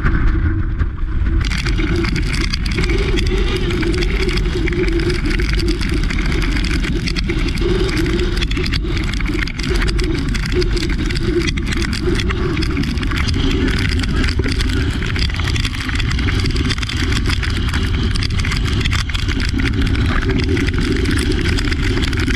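Hurricane-force wind buffeting the microphone with a loud, continuous low rumble, mixed with the hiss of driving rain.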